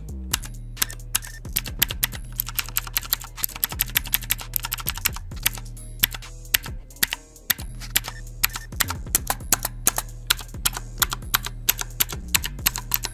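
Mechanical keyboard with blue switches being typed on quickly: a dense, irregular run of sharp keystroke clicks, with a brief lull about seven seconds in.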